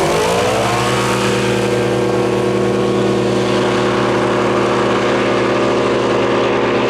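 Side-by-side UTV engines at full throttle off the drag-race start line: the engine note rises quickly in the first second, then holds one steady high pitch.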